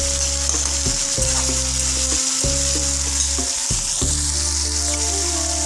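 Chopped tomatoes and onions sizzling in hot oil in a steel kadhai, stirred with a steel spatula: a steady frying hiss.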